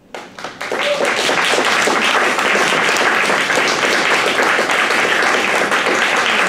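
Small audience applauding, building within about the first second to steady, loud clapping.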